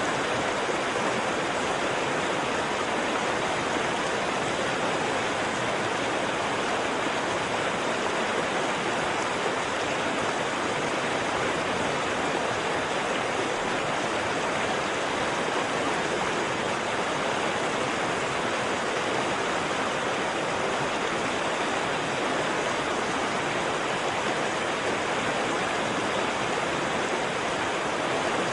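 Waterfall: water rushing and splashing in a steady, unbroken roar.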